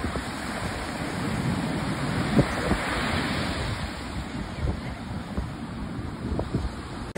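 Ocean surf breaking and washing up the beach, with wind buffeting the microphone.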